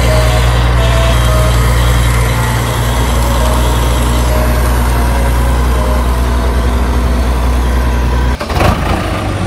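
Heavy diesel engine running steadily, a truck- or excavator-like engine note, with an abrupt change about eight and a half seconds in.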